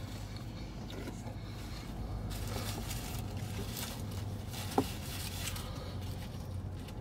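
Paper burger wrapper crinkling and rustling as it is handled, most in the middle, over a steady low hum.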